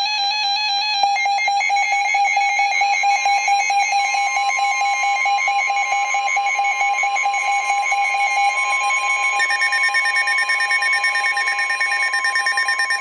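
NOAA Weather Radio alert tones from several receivers sounding over one another: a chord of steady electronic tones that make a harsh, beating alarm. A single higher tone comes in about three seconds in, a lower tone drops out around eight seconds in, and the mix changes again shortly after. The tones signal that a warning is about to be read.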